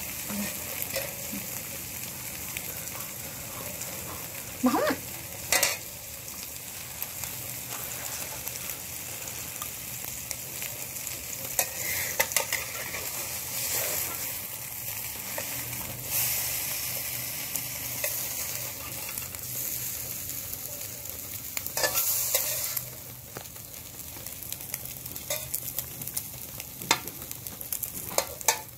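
Food sizzling steadily in a frying pan, with scattered sharp clicks of a metal spoon against the pan as the food is stirred.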